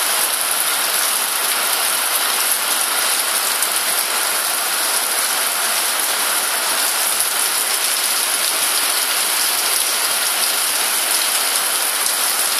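Steady heavy rain falling: a dense, even hiss of countless drops that holds at one level throughout.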